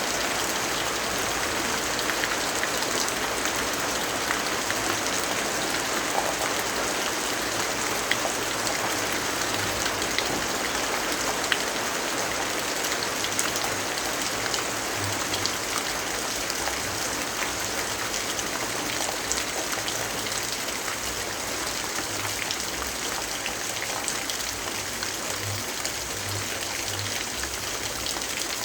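Steady rainfall, an even hiss with many small sharp drop ticks scattered through it.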